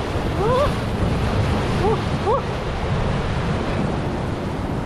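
Surf breaking and washing over a rocky shore: a steady, dense rush of seawater, with wind buffeting the microphone.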